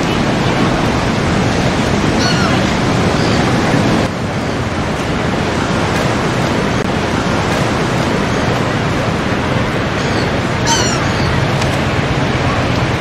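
Ocean surf washing steadily, mixed with wind on the microphone, with a few short high chirps about two seconds in and again near the end.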